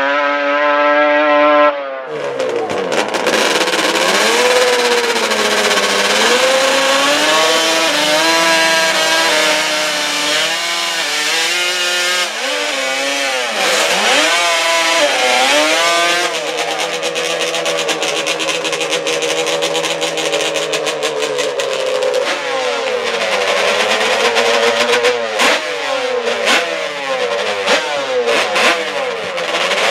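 Drag-racing ATV engine revving at the start line, its pitch repeatedly rising and falling as the throttle is blipped, with a few sharp pops near the end. For the first two seconds an engine holds a steady high note, then it cuts off abruptly.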